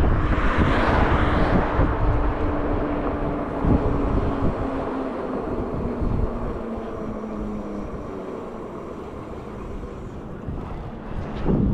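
Wind rushing over the microphone of a moving electric personal vehicle, with a faint steady whine under it. The rush eases off over the second half, then comes back loudly just before the end.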